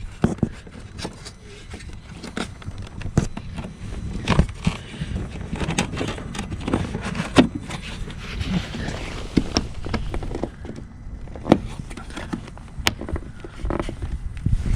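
Scattered plastic clicks, knocks and scrapes of hands fitting a new parking sensor into its holder in a car's front bumper, over a steady low rumble.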